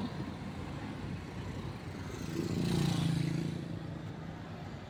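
A motor's steady low hum that swells up about halfway through and fades away again, over a background of noise.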